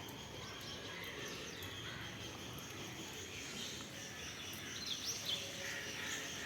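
Birds chirping over a steady background hiss, with a cluster of quick sweeping chirps about five seconds in.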